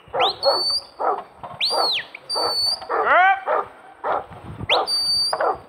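Huntaway sheepdog barking steadily, about two barks a second, as it drives sheep uphill. The handler's whistle sounds three times, each a swoop up into a held high note.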